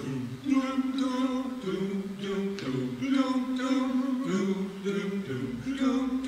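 A slow song with singing starts suddenly, its held notes changing about every second.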